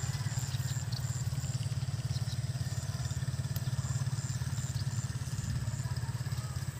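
A small engine idling steadily: a low, rapidly pulsing rumble that stays even throughout.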